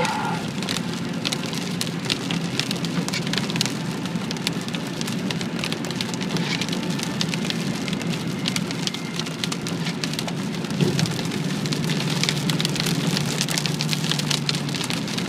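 Rain pelting a moving car's windscreen and body, heard from inside the cabin: a dense patter of drop hits over the car's steady low drone, which firms up about two-thirds of the way through.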